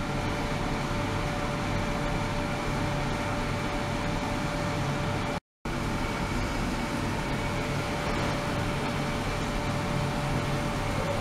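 Ultrasonic cleaning tank running: a steady hiss and hum of the water tank under ultrasonic drive, with a faint steady tone through it. The sound cuts out briefly about five seconds in, then carries on unchanged.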